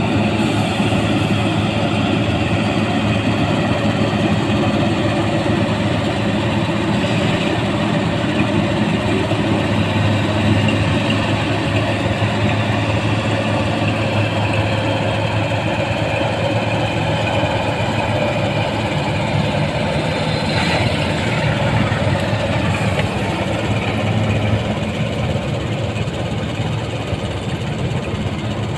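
Rice combine harvester running steadily, its engine and machinery making a continuous loud drone.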